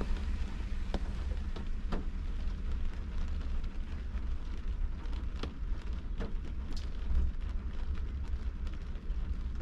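Rain on a car heard from inside the cabin: scattered single raindrops tap on the windshield and roof over a steady low rumble.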